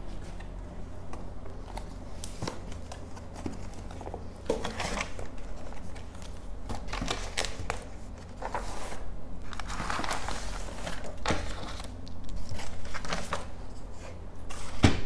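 Close-by handling noise: rustling and scattered light clicks and knocks as things are moved about, over a steady low hum, with a sharper knock at the very end.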